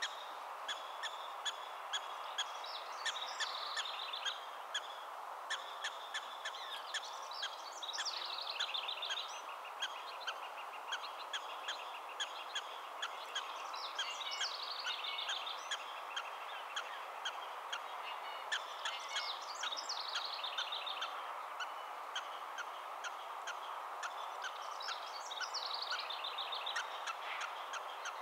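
Black-tailed prairie dog barks, short sharp chirps repeated about twice a second, over a steady background hiss. A separate falling trill recurs about every five seconds.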